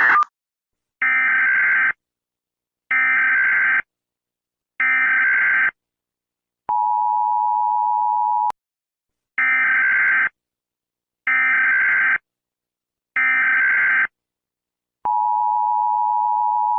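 Emergency Alert System tones: three short bursts of SAME digital header data, then the two-tone attention signal for about two seconds. Then three more data bursts, and the attention signal starts again near the end.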